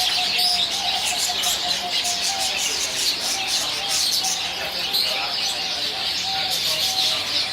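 A shop full of small caged birds chirping and twittering together: a dense, unbroken chorus of many overlapping high chirps.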